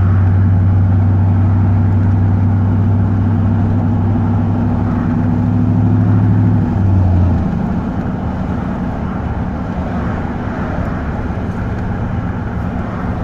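1990 Chevy K1500's 5.7 L 350 V8 exhaust, with a muffler-only system and no catalytic converter, heard from inside the cab while driving: a steady low drone. About seven seconds in the drone drops away and the sound gets quieter, leaving a rougher engine and road rumble.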